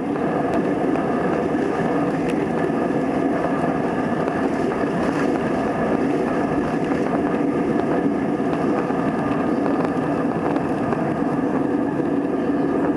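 Steady roar of a jet airliner's engines at takeoff power, heard from inside the cabin during the takeoff roll and climb-out.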